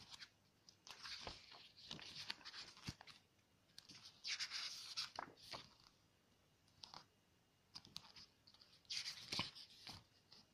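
Photobook pages being turned by hand: paper swishing and rustling in a few bursts, about a second in, around four seconds in, and again near the end, with small clicks of the pages between.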